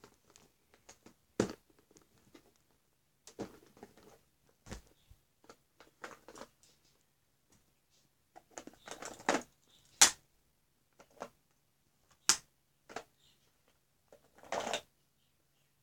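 Scattered handling noises: short clicks and knocks and brief bursts of crinkling and rustling, with quiet gaps between.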